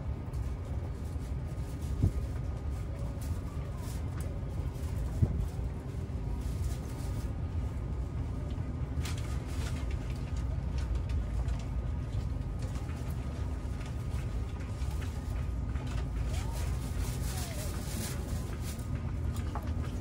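Wind buffeting the microphone, a steady fluctuating low rumble, with two soft knocks about two and five seconds in.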